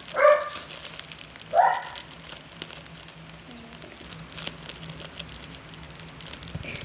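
A dog barks twice, once just after the start and once about a second and a half in. Then there is a soft crinkling of a plastic package being handled.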